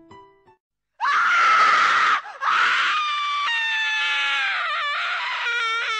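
A few soft piano notes end, then after a short silence a sudden loud human scream breaks in about a second in: a jump-scare scream. After a brief break it goes on as a drawn-out wailing scream whose pitch slides downward.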